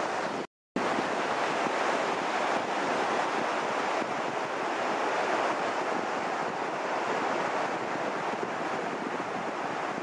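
Steady wash of surf from breaking waves, mixed with wind on the microphone. The sound cuts out completely for a split second about half a second in.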